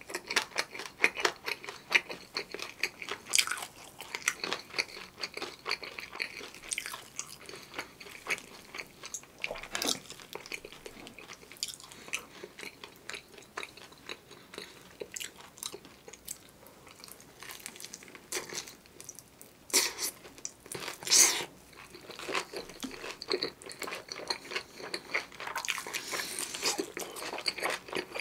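Close-miked eating of a crisp, seasoned fried chicken drumstick dipped in cream sauce: repeated biting and chewing with crunchy clicks of the coating, and one louder bite about two-thirds of the way through.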